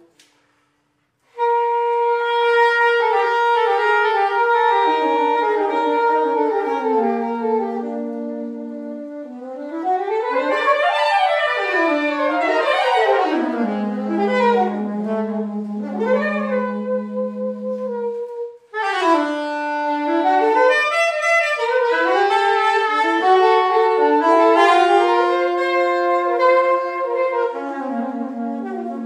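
Soprano and alto saxophones playing an unaccompanied jazz passage, with no bass line heard: fast runs up and down, and a long held low note in the middle. There is about a second of silence at the start and another brief break partway through.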